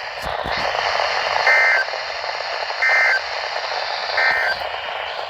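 Three short EAS end-of-message data bursts from a NOAA Weather Radio broadcast, each a brief two-tone digital squawk, about a second and a half apart, over steady radio static. They mark the end of the high wind warning message.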